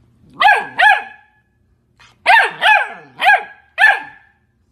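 Golden retriever puppy barking: six short, high-pitched barks, two near the start and four more in quick succession about two seconds in.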